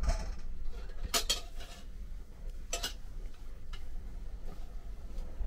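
Strong wind rumbling on the microphone, with a few sharp clicks and clinks about one, three and four seconds in.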